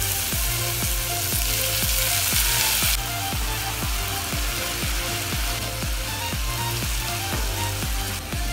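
Chopped onion and garlic frying in a pan, sizzling loudest for about the first three seconds and then more quietly. Background music with a steady beat plays underneath.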